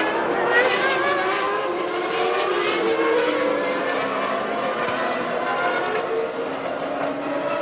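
Formula One cars' engines at high revs, several at once, their pitch sliding up and down as the cars change gear and pass.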